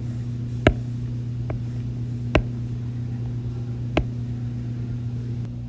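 A steady low electrical or mechanical hum, with four short sharp clicks scattered through it.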